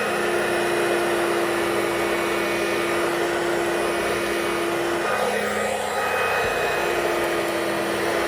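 Dirt Devil two-speed handheld vacuum cleaner running steadily as it cleans. A steady pitched tone sits over the motor's noise; it drops out about five seconds in and comes back nearly two seconds later.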